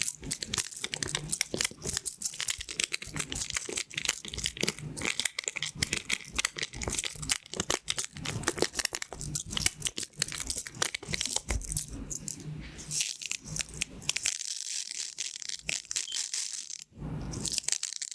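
Pin art toy's pins clicking and rattling as they are pushed and slide in their frame, a dense run of rapid small clicks with a brief pause near the end.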